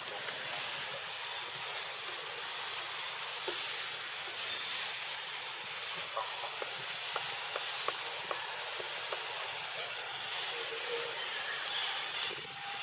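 Outdoor ambience: a steady hiss with a quick run of short, high rising chirps about four seconds in and scattered faint light clicks.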